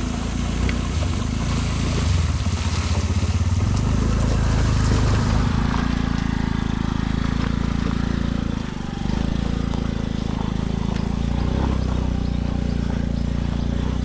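TVS Ntorq 125 scooter's single-cylinder engine running steadily under throttle while riding, with a brief easing of the throttle about nine seconds in.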